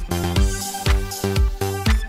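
Background music with a steady kick drum, about two beats a second, over a bass line and held synth notes.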